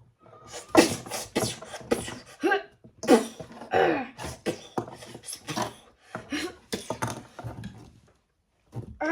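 A child's voice making fight sound effects with his mouth: a fast string of short hissing bursts and pitched vocal blasts, one after another, pausing briefly near the end.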